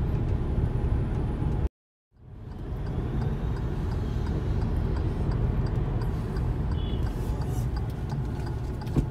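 Car cabin noise while driving: steady low engine and road rumble. About two seconds in, the sound cuts out completely for about half a second, then fades back up.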